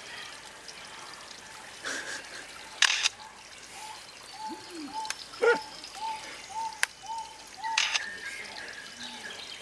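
A bird making mimicked sounds: sharp clicks, and about midway a run of short, evenly spaced whistled notes, roughly three a second.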